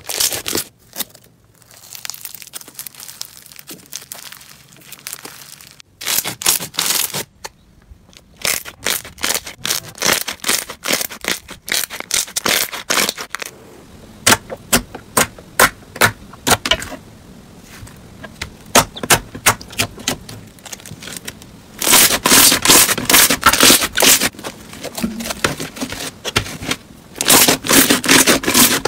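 Hands squishing, poking and kneading slime: a soft, quieter stretch first, then many sharp wet clicks and pops, and near the end a long dense run of crackling.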